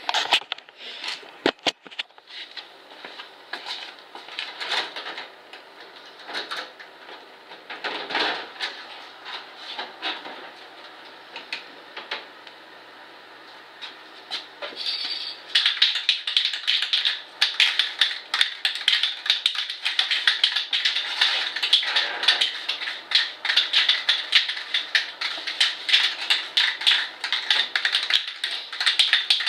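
Aerosol spray-paint can being shaken, the mixing ball clattering inside. Scattered clicks and knocks at first, then from about halfway a fast, continuous rattle.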